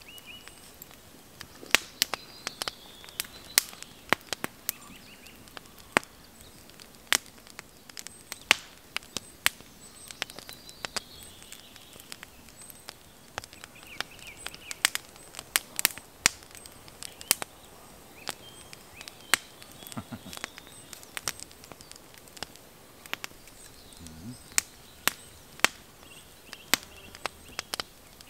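Small wood fire crackling, with sharp, irregular pops of burning twigs, several to the second at times.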